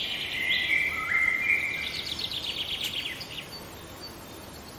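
Channel logo intro sound: high, whistle-like tones that step down in pitch, then a quick fluttering trill that fades away.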